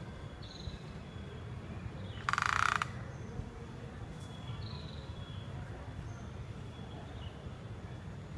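Outdoor ambience with a steady low rumble, a few short falling bird whistles, and one loud buzzy trill lasting about half a second, two seconds in.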